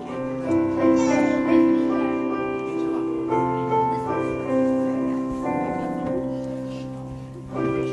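Piano playing slow chords that are struck and left to ring, fading gradually before new chords come in near the end.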